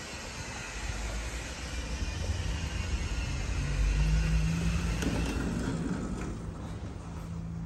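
A low vehicle rumble that swells to its loudest about four seconds in, with a steady low hum joining it.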